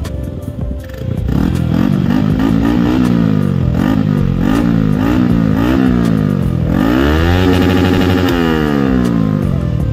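Motorcycle engine revved while standing still: a run of quick throttle blips, each rising and dropping back, then one longer rev up that is held briefly and let fall back near the end.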